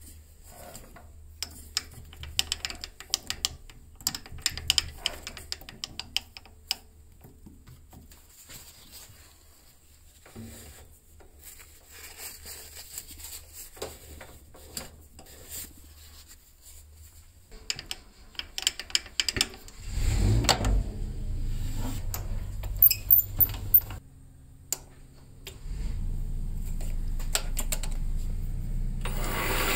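Scattered metallic clicks and taps from hands working the jaws of a small metal lathe's four-jaw chuck, clamping and centring a pool cue shaft. About twenty seconds in a low steady hum starts, breaks off briefly near the end and comes back.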